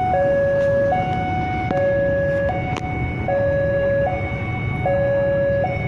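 Two-tone electronic warning alarm sounding a steady high-low pattern, each tone held just under a second, over a low background rumble.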